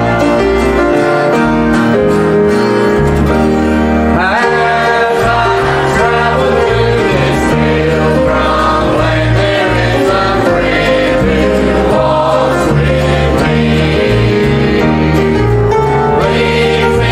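Gospel music: singing over keyboard and bass accompaniment, with the voices coming in about four seconds in.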